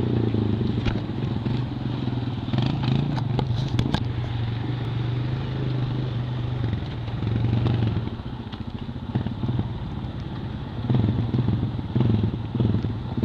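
ATV engine running under throttle, easing off about eight seconds in and pulling again a few seconds later. Scattered clicks and clatter sound over it in the first few seconds.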